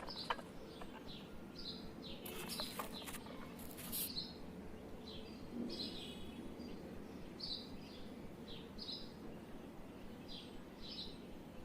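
A small bird chirping repeatedly, short high chirps about once a second, with a few light knocks in the first few seconds.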